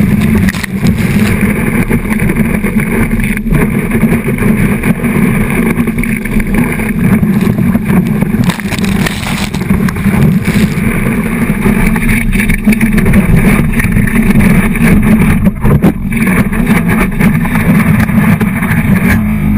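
Water rushing and spraying around a kneeboard towed at speed, picked up by a GoPro HD Hero 2 in its waterproof housing mounted on the board, with a steady low rumble.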